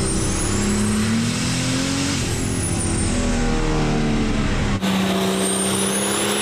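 Compound-turbocharged 6.7L Cummins diesel race truck engine running hard under load, revving, with its pitch shifting up and down. About five seconds in, the sound changes abruptly to the truck on a chassis dyno pull, where a high whistle rises.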